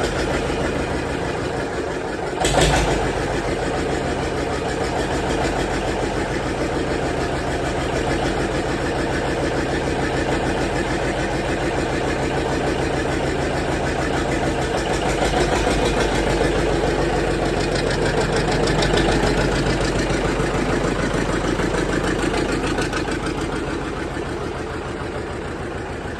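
John Deere 720 two-cylinder diesel engine running with a steady pulsing beat, after a short loud burst about two and a half seconds in. It gets a little louder midway, then eases off slightly near the end.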